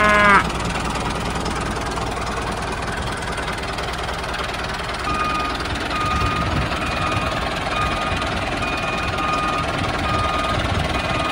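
Tractor diesel engine running steadily, with a reversing beeper starting about five seconds in and beeping at an even pace as the tractor backs up. The end of a cow's moo overlaps the very start.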